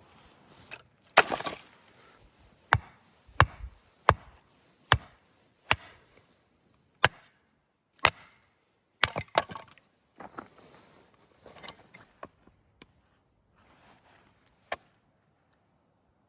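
Repeated sharp blows on wood, about one a second for some ten seconds, then a few fainter, sparser knocks and one last sharp one near the end.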